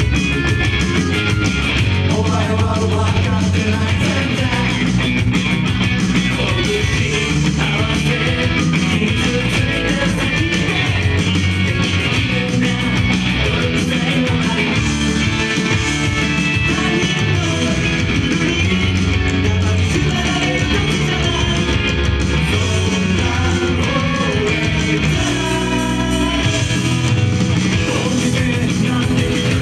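A rock song performed live, with male voices singing in Japanese over a loud rock backing with a steady beat.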